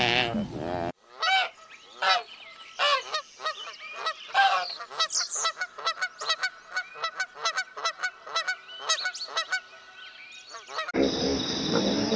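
Domestic geese honking: a quick, uneven series of short honks, several a second and often overlapping, for about ten seconds. It opens with the end of a wildebeest's call and, near the end, gives way to a steady high buzz.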